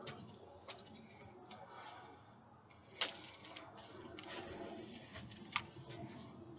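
Scattered light taps and clicks from a person hooping with an LED hula hoop. There is a sharp loud click about three seconds in and another near the end.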